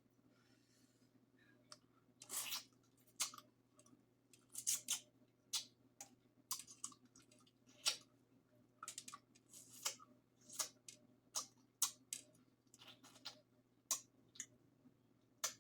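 Close-miked mukbang eating of a seafood boil: irregular sharp clicks and wet smacks from chewing and handling the food, coming every half second or so, some in quick clusters.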